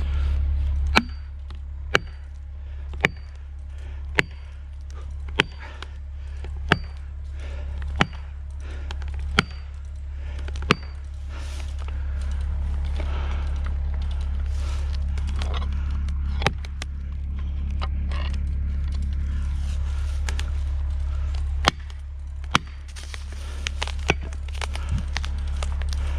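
Husqvarna 592XPG chainsaw idling steadily, with sharp, short-ringing knocks about once a second for the first ten seconds or so, then a few more later on.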